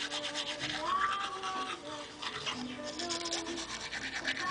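Fast, rhythmic, scratchy scrubbing of a manual toothbrush on teeth, over background music with held notes.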